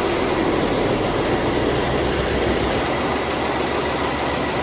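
Metal lathe running steadily.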